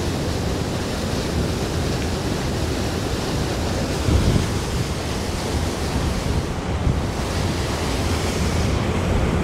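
Loud, steady, thunder-like rush of a waterfall swollen with spring snowmelt, heard from a short way off as a low, even noise.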